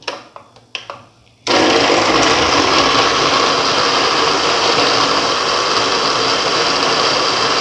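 A few faint clicks, then about a second and a half in an electric blender starts abruptly and runs steadily, grinding dates and soaked almonds into milk.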